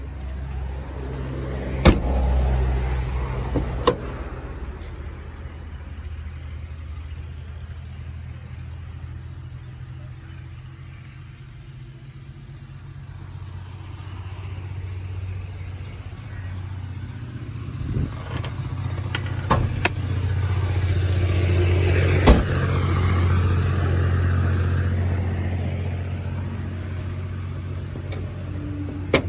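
Motor vehicle traffic with a steady low engine hum that swells and fades as vehicles pass, loudest about two thirds of the way through. A few sharp knocks and clicks stand out.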